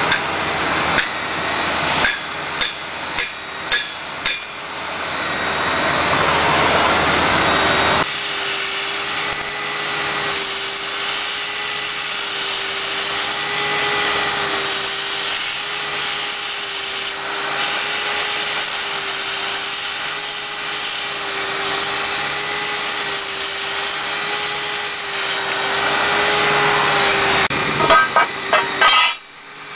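Several sharp hammer blows in the first few seconds during excavator track repair. Then a steady machine drone with a slightly wavering whine, and a few more knocks near the end.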